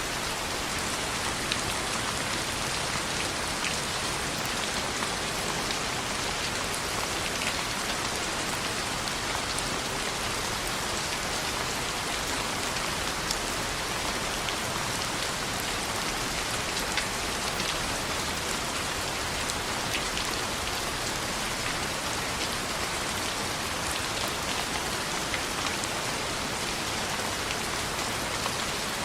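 Steady rain on a window, an even hiss of drops with occasional faint ticks.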